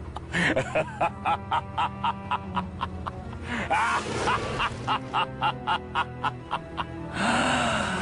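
Evil laugh sound effect over a music bed: a villain's cackle of rapid, evenly spaced "ha" pulses, about five a second. Long drawn-out laughing cries come in around the middle and near the end.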